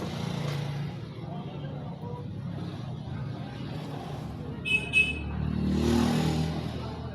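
Motor vehicle traffic passing, with two short high beeps about five seconds in and a vehicle swelling past about a second later.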